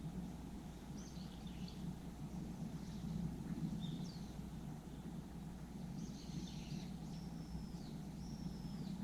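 Small birds calling: a few short chirps, then three held whistled notes in a row, each falling away at the end, over a steady low outdoor rumble.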